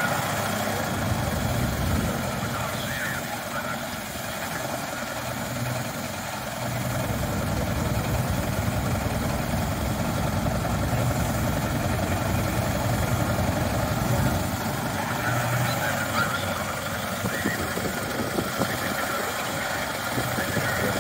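Vintage open racing car standing still and running steadily, a low throb under a continuous hiss of escaping steam.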